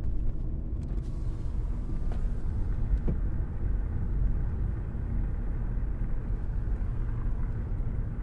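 Low, steady rumbling noise with no tune or voice, its energy mostly in the deep bass.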